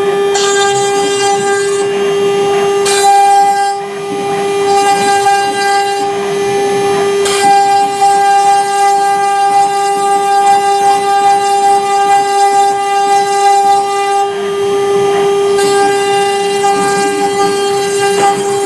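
CNC router spindle running at a constant speed with a steady high whine, over the rougher noise of the bit cutting MDF, which grows and fades every few seconds.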